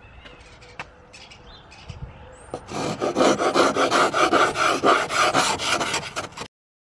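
Ice scraper scraping frost off a car windscreen, heard from inside the car through the glass. Faint at first, then rapid rasping strokes of about three a second from roughly three seconds in, which stop abruptly near the end.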